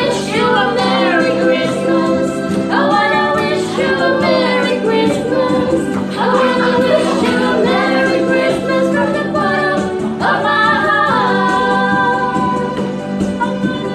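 A group of women singing together, in phrases of about three to four seconds with short breaks between them.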